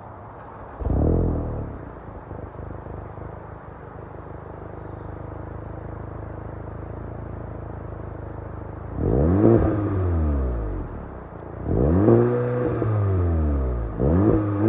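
A 2018 Volkswagen GTI's turbocharged 2.0-litre four-cylinder engine starts, flares up briefly and settles to a steady idle. It is then revved three times near the end, each rev climbing and falling back quickly.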